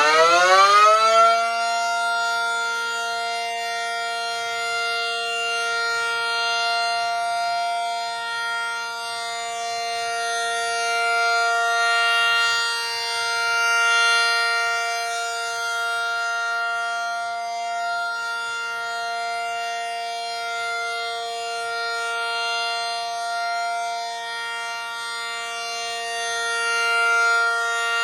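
Miniature ACA P-50 replica siren winding up to full pitch in the first second, then holding one steady tone: the alert signal. Its loudness swells and fades slowly as the rotator turns.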